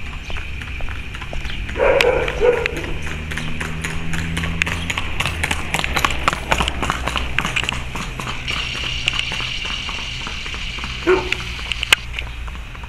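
Skateboard wheels rolling over street asphalt and paving: a steady low rumble with rapid clicks as the wheels cross cracks and joints. A short louder sound stands out about two seconds in and again near the end.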